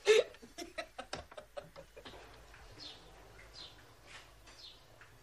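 Short, high, falling bird chirps repeating every half second or so. They follow a sharp sound at the very start and a run of clicks over the first two seconds.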